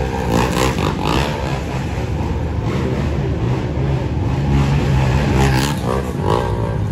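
Busy street noise: motor vehicle engines running and revving, with people's voices in the crowd.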